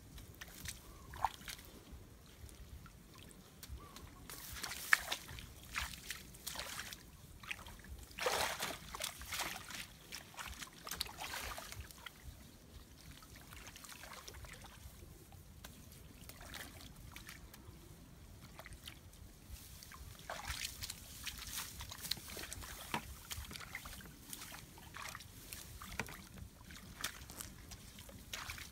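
Hands digging and scooping through mud and shallow water in a ditch, with irregular sloshes and splashes, a few louder ones standing out.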